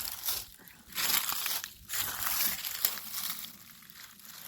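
Footsteps crunching on dry ground, about one step a second, growing quieter near the end.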